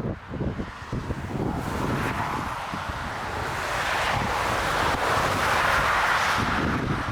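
Gusting wind buffeting the microphone, with a jet airliner passing low, its engine noise swelling to its loudest about five to six seconds in and easing off near the end.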